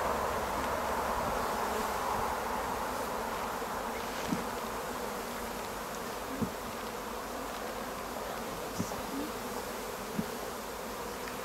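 A cloud of honeybees buzzing around an opened hive, a steady hum, with a few brief ticks along the way.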